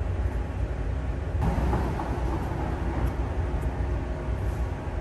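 A car driving past in a parking garage: a swell of engine and tyre noise about a second and a half in that fades over the next second or so, over a steady low rumble.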